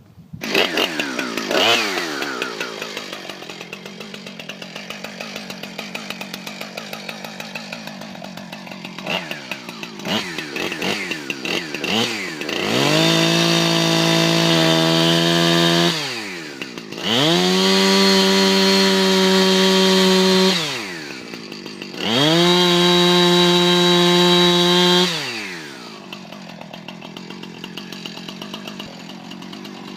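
Two-stroke chainsaw idling with a quick ticking beat, revved briefly a few times, then held at full throttle three times for three to four seconds each as it cuts the felling notch into a leaning cedar trunk. It drops back to idle between cuts.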